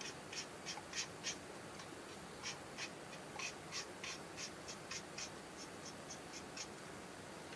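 Flat paintbrush stroking ink wash down the side of a plastic model boxcar body: a run of short, soft brushing strokes, about three a second, with a short pause early on and stopping near the end.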